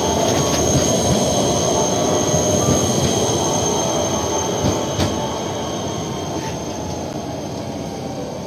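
Škoda 14T tram rolling past and moving away, its wheels running on the rails with a steady high-pitched tone over the rumble, slowly fading.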